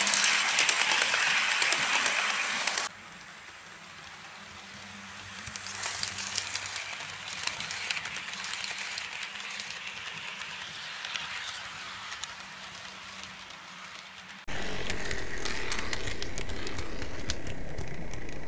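HO scale model train running on its track: a steady rolling rumble of the locomotive's motor and the coaches' wheels, with many light clicks of wheels over rail joints. The sound drops abruptly about three seconds in and jumps back up a few seconds before the end, where it becomes a steadier, fuller rumble with a low hum.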